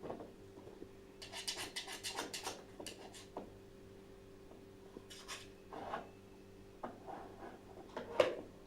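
Small dog working at a dog puzzle toy: quick runs of scraping and clattering as pieces are pushed and moved, with one sharper knock near the end.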